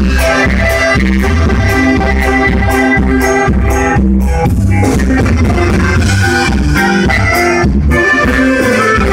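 Norteño band playing an instrumental passage live: accordion and saxophone carry the melody over a bass line and drums, with a steady beat.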